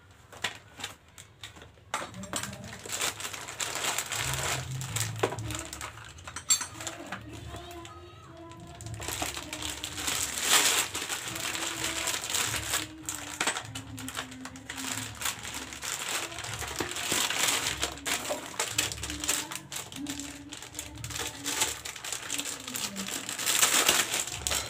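Plastic packaging crinkling and rustling in handling as a new motorcycle rear sprocket and chain are unwrapped from their bags.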